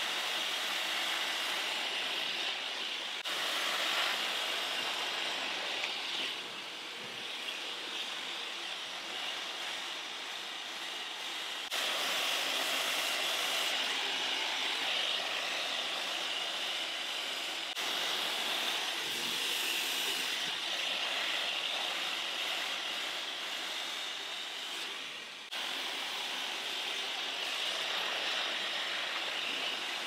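Muttus M12X leafless hair dryer blowing steadily, a high-pitched rushing hiss, as hair is dried over a round brush. The level jumps abruptly a few times.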